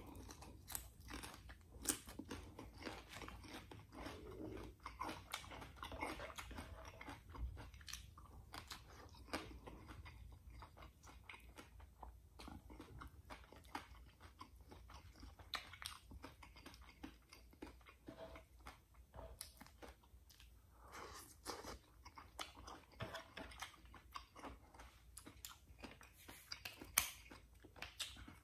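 A man chewing and biting food close to the microphone: a steady run of small wet clicks and crunches as he eats rice, mussels and crisp raw bok choy stalks. There is a sharper click near the end.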